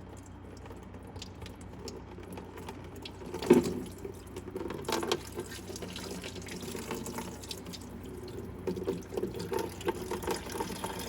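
Coolant, here just water, running out of a radiator's bottom drain plug and splashing, with a loud knock about three and a half seconds in and smaller clicks after.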